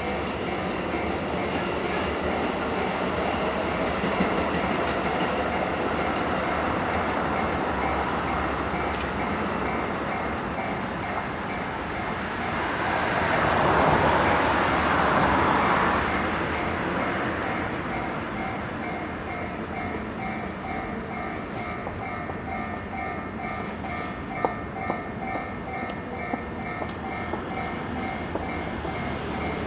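Japanese level crossing's electronic warning bells ringing over and over while a train passes, the train's running noise swelling to its loudest about halfway through. A few sharp clicks come near the end.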